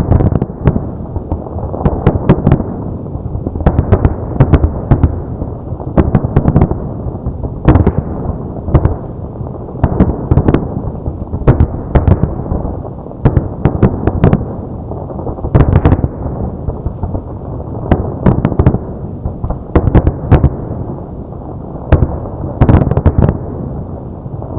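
Aerial fireworks display: shells bursting one after another in rapid volleys, sharp bangs and crackles over a continuous rolling rumble of booms and echoes.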